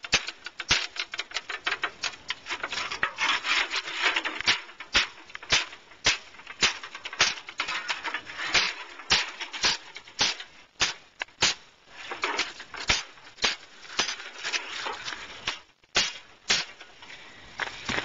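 Mallet blows on a length of angle iron laid over a copper tube, pressing a sheet-metal absorber fin to shape around the tube. A long run of sharp knocks, about two or three a second, with a short pause near the end.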